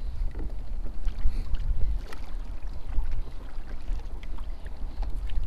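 Wind buffeting the microphone in an uneven low rumble, over a fishing kayak sitting on choppy lake water, with scattered small splashes and ticks of water against the hull.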